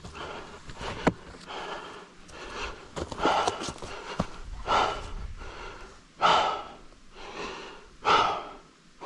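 Heavy, laboured breathing: a loud, noisy breath every second or two, growing stronger in the second half, with a few sharp clicks and knocks in between.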